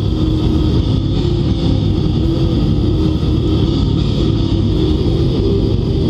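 Black death metal band playing live at full volume: distorted electric guitar and bass over drums in one dense, unbroken wall of sound with a heavy, muddy low end.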